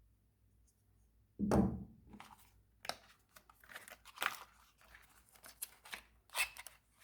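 Knife packaging being opened by hand: a loud tear or thump about one and a half seconds in, then a run of short rustles and scrapes of cardboard and wrapping.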